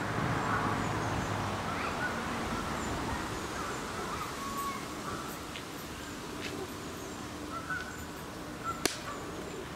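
Outdoor park ambience beside a pond: a steady background hiss with scattered short bird calls, and one sharp click about nine seconds in.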